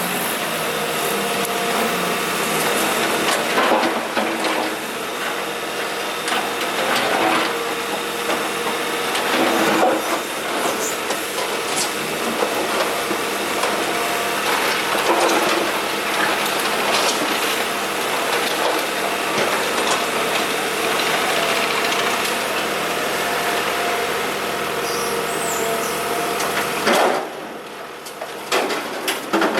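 Kobelco SK125W wheeled excavator running steadily with its engine under work, with scattered sharp knocks from its bucket on broken asphalt. The level drops suddenly near the end.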